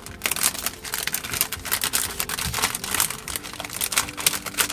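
Clear cellophane bag crinkling as hands open it and handle the flat parts sheet inside, a dense run of irregular crackles.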